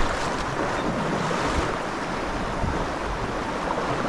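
Steady rushing of a shallow mountain river flowing over cobbles and a riffle.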